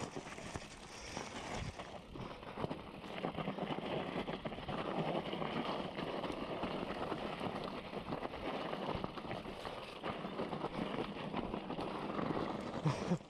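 Mountain bike rolling down a rough trail, its tyres crunching over gravel and rocks with a steady clatter of small knocks from the bike.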